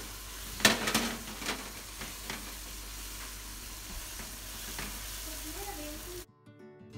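Ground chili-garlic paste sizzling in oil in a nonstick wok as a spatula stirs it, with a few sharp spatula knocks against the pan in the first couple of seconds. The sizzling cuts off suddenly near the end and guitar music starts.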